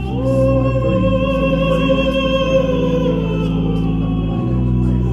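Music played back through a pair of Acora floor-standing loudspeakers: a long held note swells in at the start and sustains for about three seconds over steady low bass tones.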